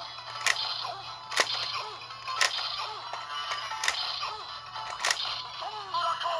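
Electronic sound effects from a Super Sentai transformation-device toy: a looping synthesized jingle with short gliding tones, cut by sharp whip-crack hits about once a second.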